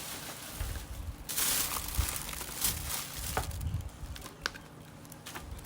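Crinkling and rustling of something being handled, with a few light clicks and taps.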